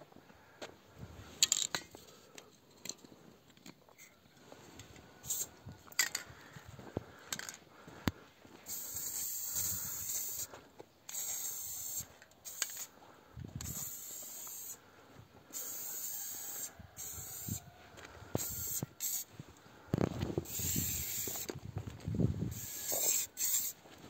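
Aerosol spray-paint can spraying in repeated hissing bursts of one to two seconds each, starting and stopping. Before the spraying starts, about eight seconds in, there are only scattered clicks and knocks.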